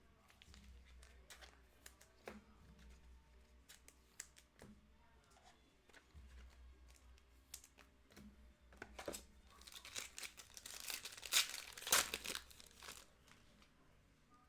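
Light clicks and taps of trading cards being handled, then about ten seconds in a few seconds of crinkling and tearing as a foil trading-card pack is ripped open.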